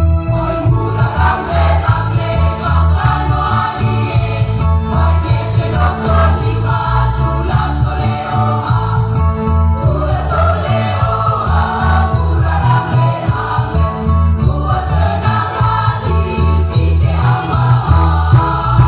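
School choir singing through a sound system over accompaniment with a steady low beat.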